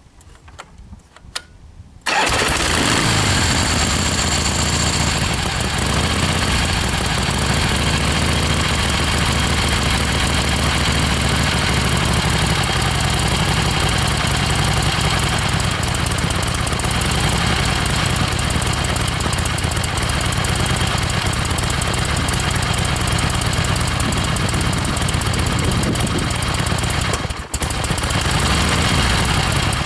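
1976 Harley-Davidson XLCH Ironhead Sportster V-twin engine firing about two seconds in and then idling steadily, with one brief drop near the end. The owner says it starts and idles fine and misfires only when ridden.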